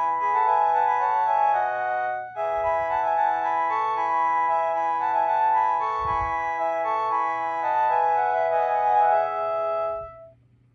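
A Panasonic KX-TGF780 cordless telephone playing a melodic electronic ringtone: a tune of held notes that breaks off briefly about two seconds in, starts again, and stops near the end. A faint low hum runs underneath.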